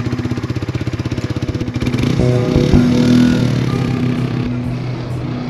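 Motorcycle engine idling with a rapid, even firing pulse; about two seconds in, shifting tones and a whoosh join in.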